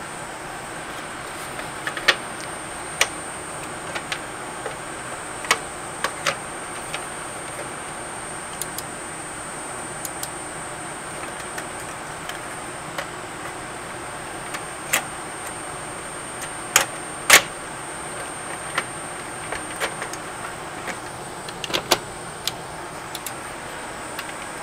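Light, sharp clicks and taps at irregular intervals from handling and testing an opened CD player's mechanism, over a steady hiss with a thin high whine.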